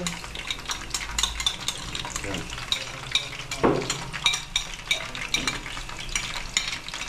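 A utensil stirring and scraping in a pot of sizzling food, with many quick clicks and taps against the pot and one duller knock nearly four seconds in.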